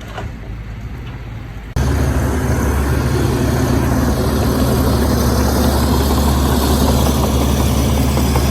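Heavy diesel engine of earthmoving machinery running steadily. It suddenly becomes much louder and fuller about two seconds in, then carries on at that level.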